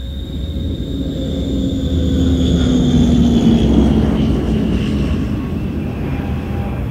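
Turboprop airliner passing by: a rumbling drone with a high turbine whine, swelling to its loudest about halfway through and then fading as the whine slowly falls in pitch.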